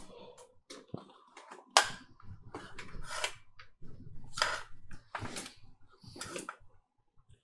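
Handling noises on a workbench: a few light clicks, a sharp knock about two seconds in, then short rustling scrapes about once a second as hands move things on the silicone work mat.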